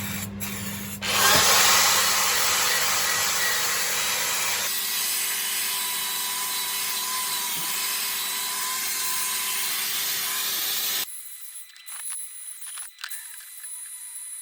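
Powered wire brush scouring the cast-iron body of a Record No. 110 bench vise, cleaning it back to bare metal before painting. A loud, steady scouring hiss starts about a second in, changes tone about five seconds in, and cuts off abruptly about eleven seconds in, leaving a few light knocks and clicks.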